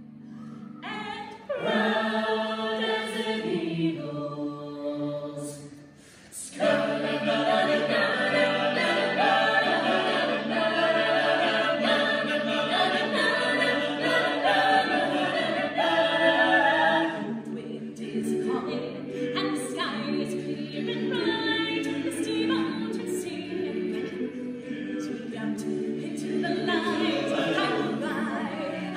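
Eight-voice a cappella ensemble singing in close harmony, men's and women's voices together with no instruments. The singing breaks off briefly about six seconds in, resumes at full strength, and turns softer past the middle.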